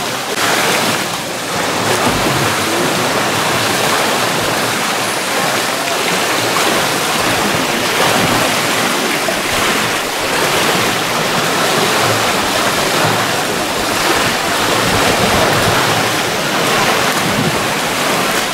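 Steady rushing and splashing of water as swimmers churn the pool close by.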